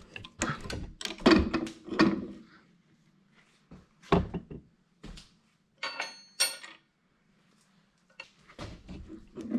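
Metal clunks and knocks from hand tools working on a Farmall C tractor's steering shaft to get it loose, with a ringing metallic clink about six seconds in.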